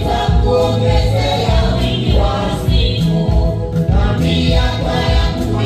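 Gospel choir singing over instrumental backing with a steady low bass beat.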